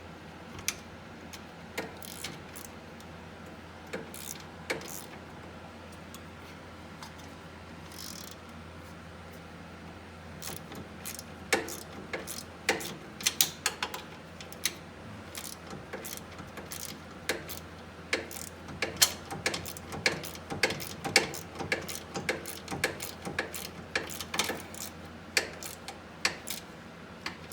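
Hand ratchet clicking as a differential bolt is snugged down: a few scattered metallic clicks at first, then quick irregular runs of clicks from about ten seconds in.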